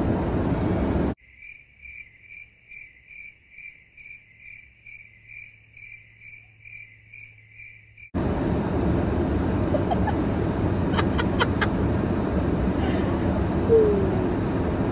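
Steady car-interior rumble cut off abruptly by a cricket-chirping sound effect: a chirp about three times a second for about seven seconds over silence. The car-interior rumble then returns abruptly, with a few sharp clicks partway through.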